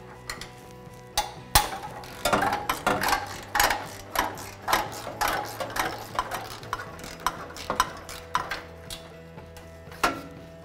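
Steel wrenches clinking and clicking against a rusted exhaust flange nut and bolt as they are worked loose: a run of sharp, irregular metallic clicks and clanks starting about a second in and stopping near the end.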